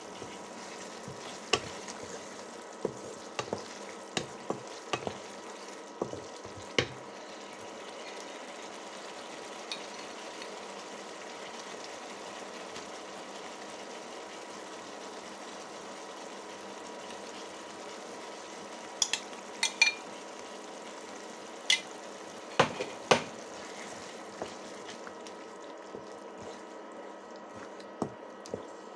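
Spice paste frying in oil in a pan, a steady sizzle, with a wooden spatula knocking against the pan in sharp clicks as it is stirred: several in the first few seconds, a cluster around two-thirds of the way through, and one near the end.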